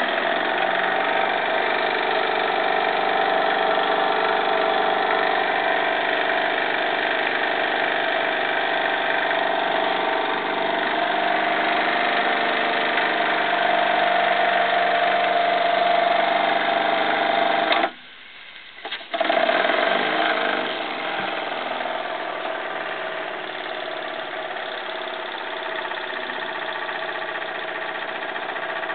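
Jensen 75 model steam engine running fast, driving a line shaft and a heavily geared-down hoist with a steady mechanical whirring while it lifts about 16 pounds of water. The sound cuts out for about a second two-thirds of the way through, then carries on slightly quieter.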